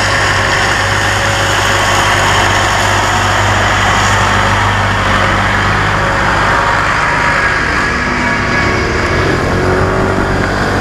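Small motorcycle engine running steadily while riding, with wind and road noise over the helmet-mounted microphone.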